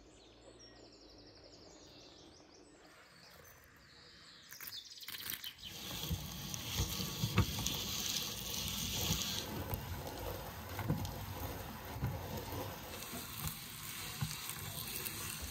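Walnuts being ground in a hand-cranked metal meat grinder: irregular crunching and grinding from about five seconds in to the end. Before that it is quiet, with a few birds chirping.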